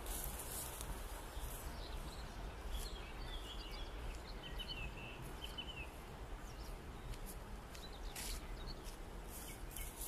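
Quiet outdoor ambience: a steady low wind rumble on the microphone, with a few faint bird chirps from about three to six seconds in.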